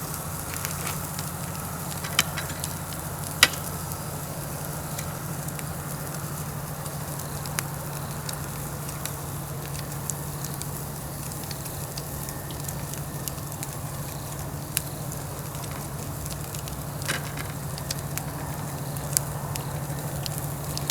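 Pine-wood fire crackling, with scattered sharp pops and meat sizzling on the grill over it. A steady low hum runs underneath.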